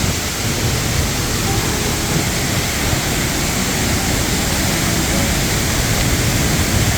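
Waterfall pounding hard into its pool close by: a loud, steady rush of water that the vlogger feels the force of.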